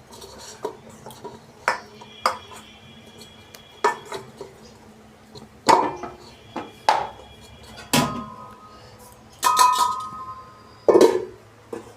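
Metal kitchenware clinking: a lid or plate knocked against a bowl about eight times, with some strikes ringing briefly, as a bowl of dough is covered and handled.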